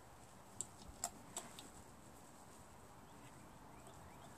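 Three light clicks in quick succession between half a second and a second and a half in, from the thin steel reed valve tapping against the compressor's valve plate as it is fitted by hand. Then near silence.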